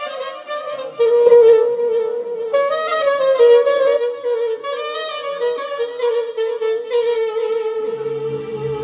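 Soprano saxophone playing a slow, ornamented doina melody, settling into a long held note in the second half. Low accompaniment chords come in near the end.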